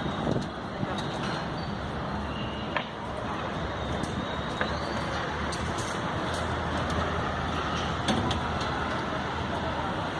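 Steady engine noise with a low hum, and a few short, sharp knocks scattered through it.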